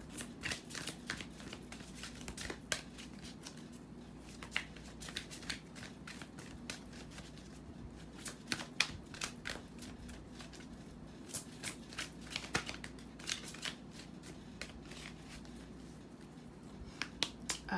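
A deck of oracle cards being shuffled and handled by hand: irregular clusters of quick card clicks and flutters, over a steady low hum.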